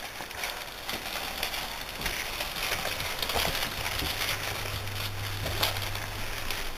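Rustling and crackling of a bedspread as two French Bulldog puppies scuffle and play on it.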